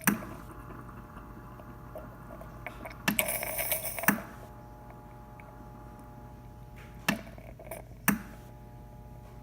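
Gaggia Platinum Vision espresso machine's steam wand sputtering out water before steam comes, over the machine's steady hum. There are a few sharp spits, the longest a hissing burst of about a second some three seconds in.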